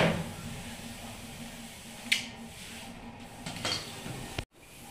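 Handling noise while a table is being assembled: a sharp click about two seconds in and a softer clatter a little later, over a faint steady hum. The sound cuts out for a moment near the end.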